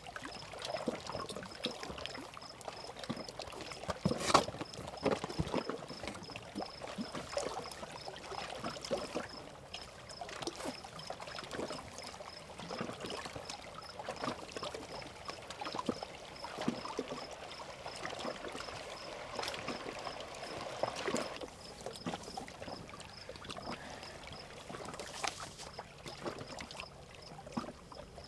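Water splashing and sloshing in irregular light strokes as a person moves about in it, with a sharper splash about four seconds in and another near twenty-one seconds.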